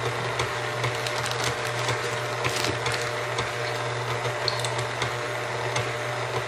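KitchenAid Ultra Power stand mixer running at a steady speed, its motor humming evenly as the wire whisk beats still-liquid heavy cream in a stainless steel bowl.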